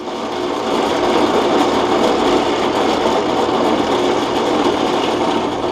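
Drill press running at speed with an endmill cutting into a wooden block: a steady, dense machine noise that swells slightly in the first second.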